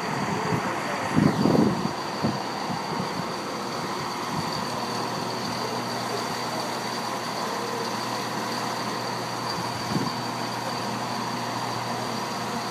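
British Rail Class 170 Turbostar diesel multiple unit departing and passing close by: its underfloor diesel engines run with a steady drone under a thin, steady high whine. A short louder low rumble comes about a second in.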